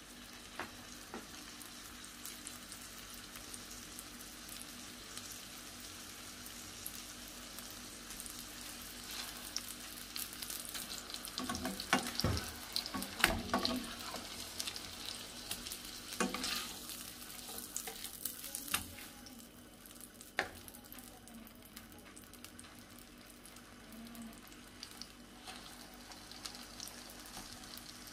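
Two beef burger patties sizzling steadily in melted butter in a frying pan. A spatula scrapes and knocks against the pan several times, in a cluster about halfway through and a few more times soon after.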